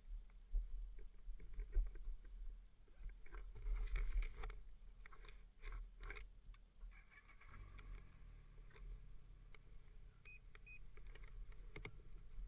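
Faint, low, steady running of a stopped Ski-Doo snowmobile, with scattered clicks and rubbing noises in the first half. About halfway in, a steadier low hum sets in. A few seconds later come two short high beeps.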